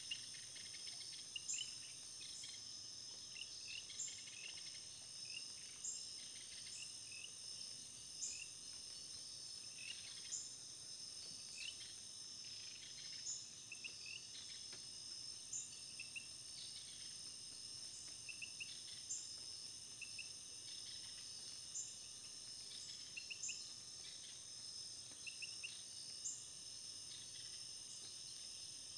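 Steady high-pitched insect chorus, like crickets trilling, with a short chirp repeating about every two seconds and other brief chirps scattered through it.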